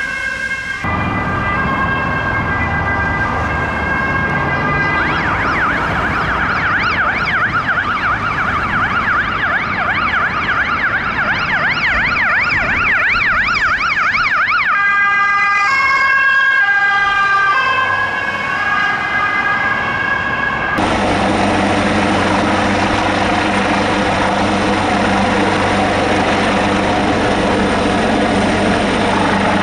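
Emergency-vehicle sirens on passing Swedish rescue vehicles and an ambulance: a two-tone hi-lo siren, then a fast warbling wail for about ten seconds, then the two-tone again. About 21 seconds in, the sound changes to a search-and-rescue helicopter's steady rotor and engine drone.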